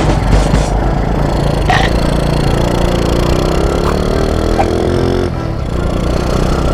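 Honda Wave 125 motorcycle engine running under loud crackling noise, its tone rising steadily from about two and a half seconds in and falling away just after five seconds.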